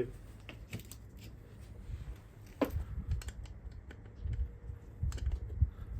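Irregular small clicks and taps of hand tools and sockets being handled on a strut's spring compressor.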